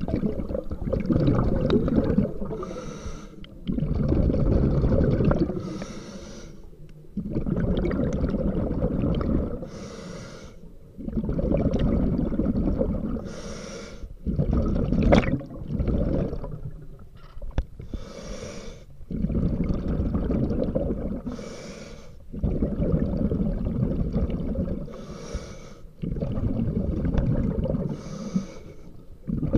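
A scuba diver breathing through a regulator underwater, heard close up: slow, regular breaths about every three to four seconds, each a two-second rush of bubbling exhaust with a short hiss from the regulator. There is one sharp click about halfway through.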